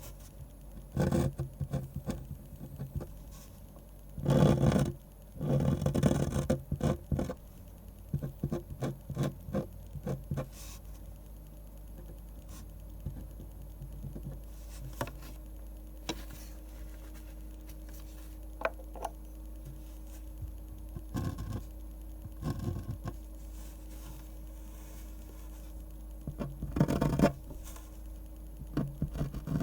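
Pen scratching on paper while drawing manga, in short irregular strokes. There are louder stretches of rapid scratching near the start and again near the end, with sparser light strokes in between. A faint steady hum comes in about a third of the way through.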